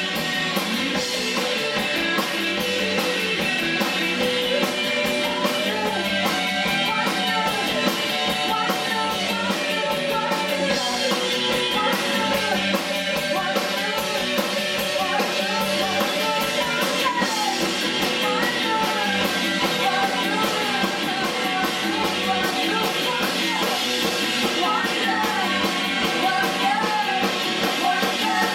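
A rock band playing live: electric guitars, bass guitar and drum kit, with a woman singing over them.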